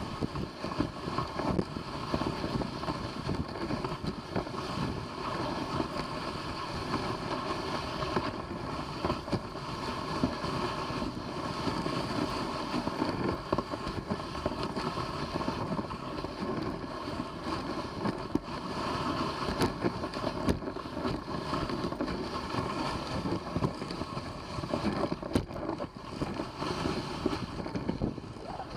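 Dog sled running along a trail behind its team: a steady rushing scrape from the moving sled, peppered with small knocks and bumps, with wind on the microphone.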